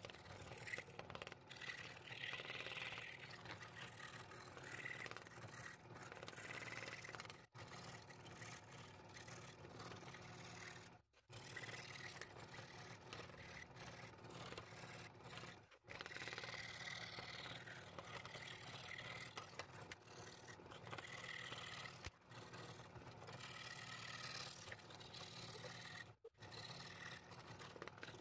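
Scroll saw running steadily, its fine blade reciprocating as it cuts through a wooden board. The sound cuts out abruptly a few times for a moment.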